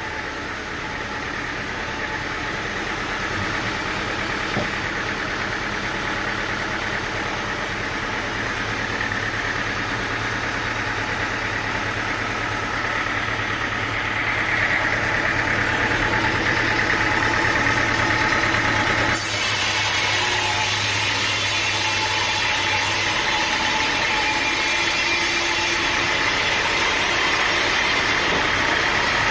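Sawmill engine running steadily and growing louder about halfway through. A high hissing noise comes in abruptly about two-thirds of the way in.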